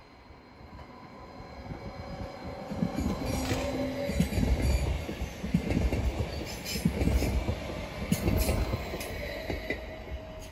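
A red-and-grey electric multiple-unit regional train rolls past close by, its wheels rumbling and clacking over the rail joints, with short wheel squeals. The sound grows over the first few seconds, is loudest as the cars pass, and eases off near the end.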